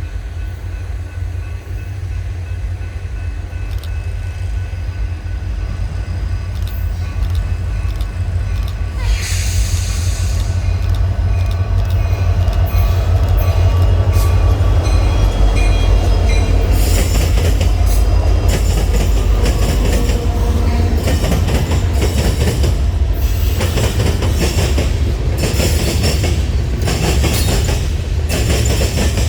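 A train approaching and passing, its heavy low rumble growing louder, with a brief high-pitched squeal or hiss about nine seconds in. From a little past halfway, its wheels clack over the rail joints in a quick, uneven rhythm as the cars roll by.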